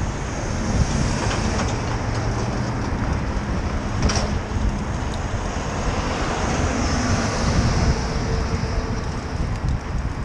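Wind rushing over the microphone of a moving bicycle, mixed with the steady noise of road traffic. A short, sharp high sound cuts through about four seconds in.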